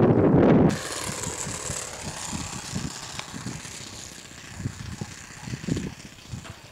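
Wind buffeting the microphone, loud at first and dropping away abruptly under a second in, then lighter irregular gusts. Behind it, the model plane's four-stroke glow engine is faintly heard at a distance.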